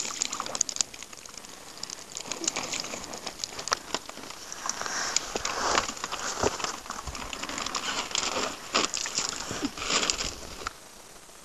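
A heap of wet capelin slithering and pattering as they are tipped from a plastic bucket into a plastic bag, with the bag crinkling. The rustling clatter stops abruptly near the end.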